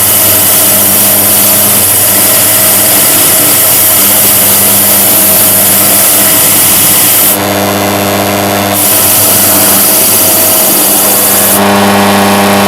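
Key duplicating machine running while a freshly cut key is pressed against its spinning deburring wheel to smooth off the burrs. A loud, continuous grinding hiss lasts about seven seconds, then breaks for about a second and a half, leaving only the steady motor hum. A second pass of about three seconds follows, and the motor hum runs on alone near the end.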